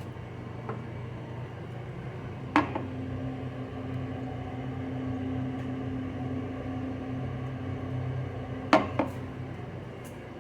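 Niagara Stealth toilet's tank refilling after a flush: a steady hum and hiss of water running through the fill valve, with a sharp click about two and a half seconds in and two quick clicks near the end.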